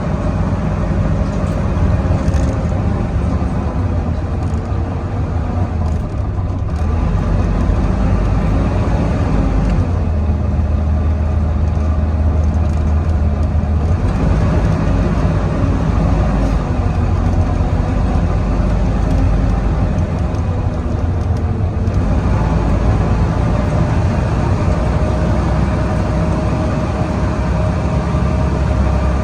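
Volvo B9TL double-decker bus driven hard, its diesel engine working under heavy load with a whine like a vacuum cleaner. The engine note drops and climbs again several times as it changes gear.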